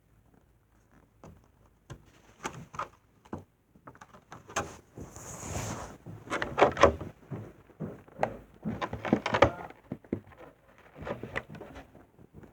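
Hands handling Pokémon card packaging: irregular rustling and crinkling with sharp taps and clicks, sparse at first, then busier and louder in the middle.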